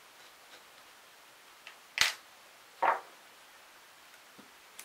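Two sharp clacks of small metal parts knocking on a workbench about a second apart, the first the louder, with a few faint taps around them: screws and tools being handled while a model aircraft engine is taken apart.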